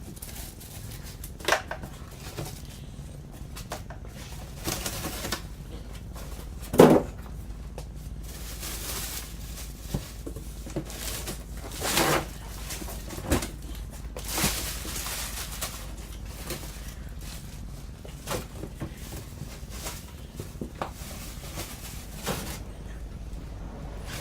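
Unpacking a boxed miter saw: cardboard and packing material rustling and scraping, with scattered knocks and clunks and one loud thump about seven seconds in.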